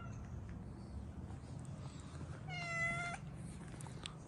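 A kitten meows once, a single high-pitched call lasting under a second, about two and a half seconds in.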